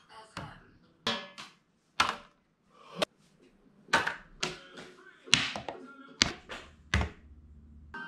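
Playing cards flicked across a room and striking or slotting into card holders: a dozen or so short, sharp taps and thunks with quiet gaps between them.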